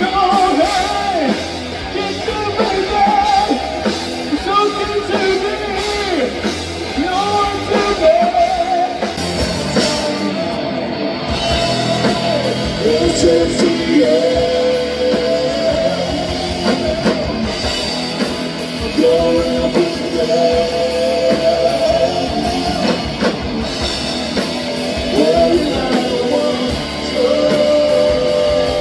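Rock bands playing live, with sung vocals over electric guitar and drums. About ten seconds in, the music cuts abruptly to a different band's set.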